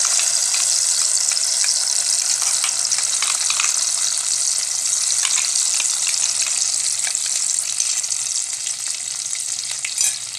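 Wet masala paste of blended tomato, green chilli, cashew and melon seeds frying in hot oil, a steady sizzling hiss with scattered small pops. A short knock near the end.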